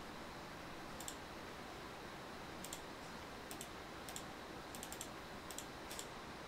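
Light, irregular clicks of computer keys and buttons, about ten in all, beginning about a second in with a quick cluster near the middle-to-late part, over faint steady hiss.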